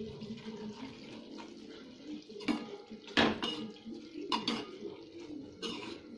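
A metal spatula stirring thick cauliflower-and-peas curry in a steel pot, scraping the pot steadily and clinking against its sides several times.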